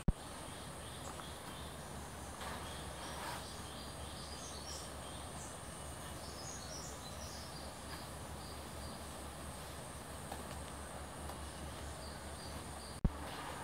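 Tropical morning ambience of insects and birds: a steady hiss with a run of short high chirps in the middle. A sharp click sounds at the start and again near the end.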